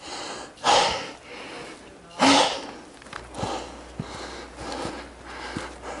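A hiker breathing hard while climbing a steep slope with a loaded pack. There are two loud puffing breaths, about a second in and just after two seconds, then quieter breaths and a few light knocks.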